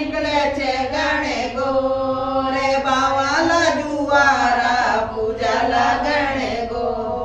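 A woman singing a Rajasthani Gangaur folk song (gangaur geet), drawing out long held notes that bend in pitch.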